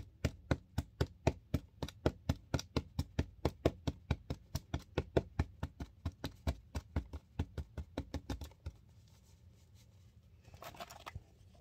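A spatula rapidly tapping and pressing cornstarch down in a plastic container, packing it hard, at about four or five even knocks a second; the tapping stops a little before the end, followed by a brief scratchy rustle.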